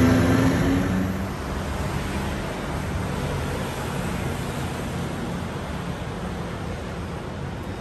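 Steady city street traffic noise, a continuous even wash of sound. A humming tone with overtones fades out about a second in.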